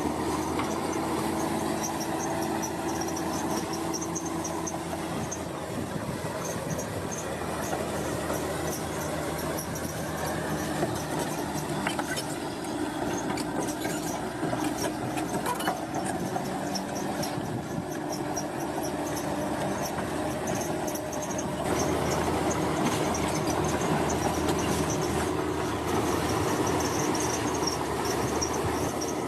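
Heavy construction machinery running steadily, a dense engine and mechanical noise with a high metallic squeal over it; the noise grows louder for the last several seconds.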